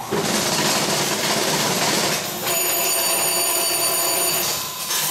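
Baker's Pacers horse-race payout machine's motor-driven mechanism running loudly as the game completes. About two and a half seconds in, its bell rings steadily for about two seconds, signalling the jackpot win.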